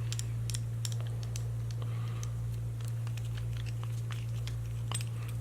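Light, irregular clicks and taps of small metal parts as a padlock and its core-retaining screw are handled, over a steady low hum.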